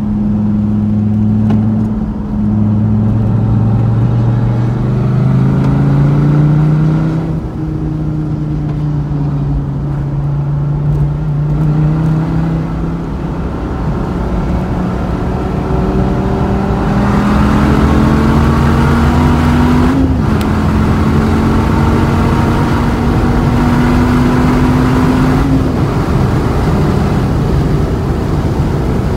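A Dodge Viper's V10 engine runs hard through a track lap. Its note climbs under acceleration and steps down at gear changes and lifts. From about 17 seconds in there is a long slow climb, which drops off about 25 seconds in.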